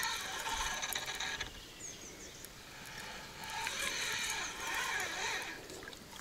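Spinning reel on a feeder rod being cranked to wind in a hooked crucian carp. Its gears give a fast, even whirr in two spells of winding, the second starting about three seconds in.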